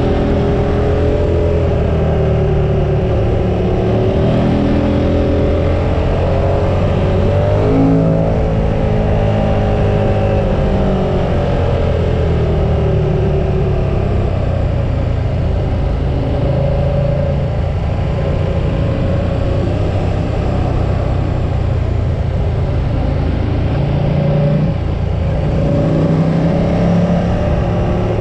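KTM 1290 R's V-twin engine running under way at road speed, its pitch repeatedly rising and falling as the throttle is opened and closed through the bends.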